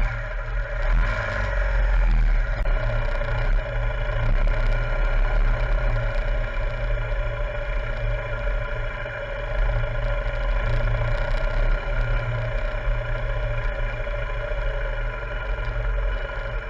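BMW R1200 GS Adventure's flat-twin engine running at a steady speed while riding off-road.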